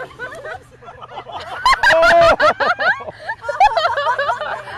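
People laughing loudly, with a burst of rapid laughing about two seconds in, among excited voices.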